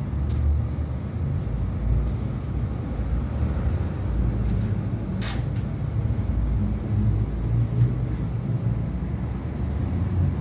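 Steady, uneven low rumble, with one sharp click about five seconds in.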